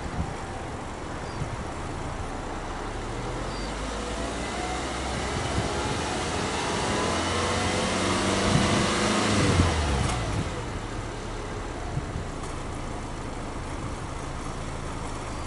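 Subaru Legacy B4 2.5i's flat-four boxer engine, heard at the tailpipe, revved slowly while parked. Its pitch and exhaust note climb steadily for several seconds to a peak, then fall back to a steady idle about ten seconds in.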